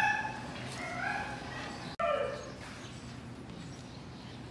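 Siberian huskies whining and yipping: a few short whines in the first second and a half, then, after an abrupt break about two seconds in, one more falling whine.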